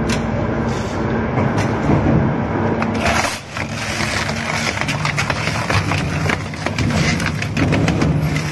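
Industrial crusher machine grinding and breaking up hard material, with a steady low machine hum under frequent sharp cracks and snaps.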